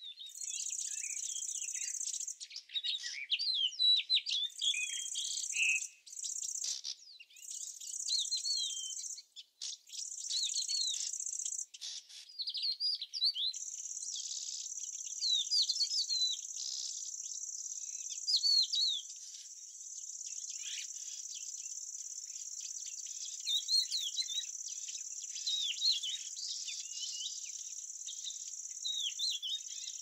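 An insect trilling in a steady high buzz, in spells of a few seconds at first and unbroken from about halfway, while small songbirds chirp and twitter throughout.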